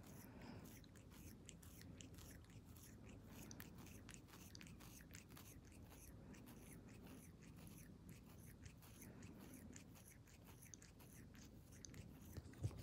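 Faint, quick wet clicks and smacks of a cat licking its paw and face while grooming, close to the microphone, over a low steady room hum.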